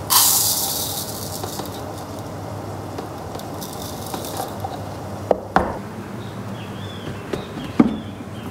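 Uncooked rice grains pouring from a plastic canister into a bowl: a loud hiss of grains that fades over about a second, then a second, fainter pour a few seconds in. Three sharp knocks follow in the second half.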